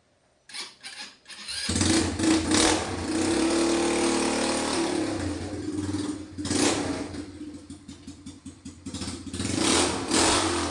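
200cc ATV engine revving as the quad is ridden forward. It comes in about a second and a half in, revs hard for a few seconds, eases off, then rises again in two short surges.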